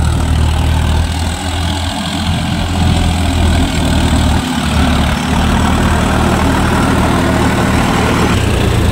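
John Deere 5045D tractor's three-cylinder diesel engine running steadily under load as it drives through wet mud and shallow water.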